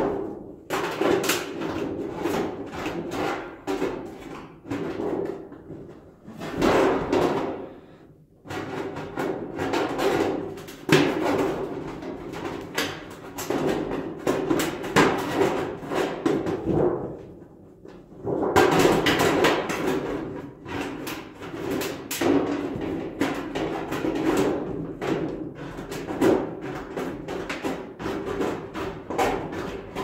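Tin snips cutting galvanized steel oval duct: a long run of close-spaced metallic snips and crunches, with two short pauses.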